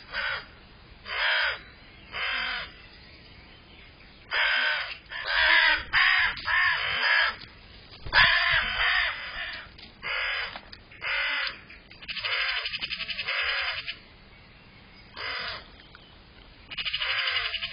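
Crows cawing: a run of loud, harsh calls, each under a second, coming every second or two. A couple of longer, grating calls with a rattling edge come around the middle and near the end.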